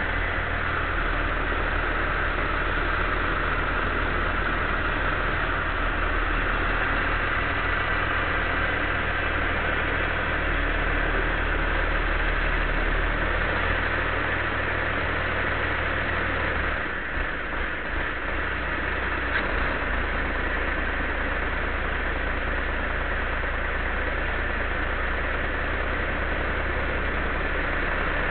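An engine running steadily at a constant speed, with a brief dip and change in its low drone about two-thirds of the way through.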